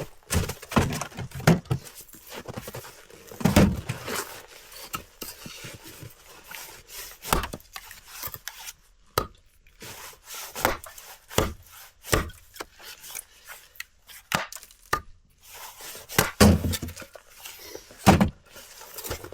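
Irregular knocks, clunks and scrapes of things being handled, with a few heavier thuds.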